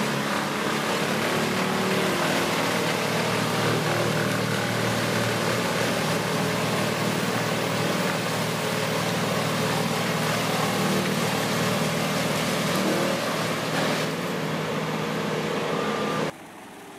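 Heavy machine running: a steady engine drone under a loud, even rushing noise, which drops away suddenly near the end.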